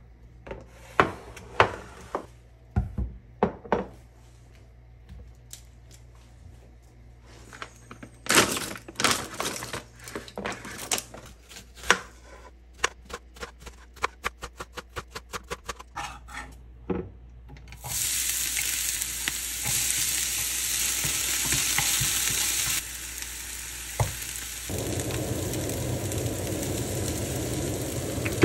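Containers knocked down onto a stone counter, then a kitchen knife chopping onion on a plastic cutting board: a few heavy cuts, then fast even chopping at about five strokes a second. From about 18 seconds, chopped onion sizzling steadily in a hot frying pan, joined at about 25 seconds by the low steady noise of a kitchen exhaust fan.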